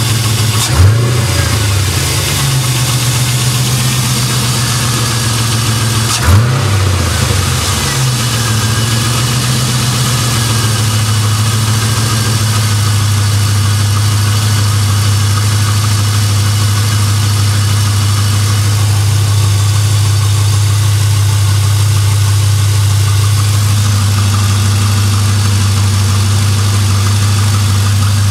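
Chevrolet LS1 V8 engine idling, blipped twice, about one second in and about six seconds in, each time quickly dropping back to a steady idle. It is being run to show a weird sound from the motor that the owner has not pinned down.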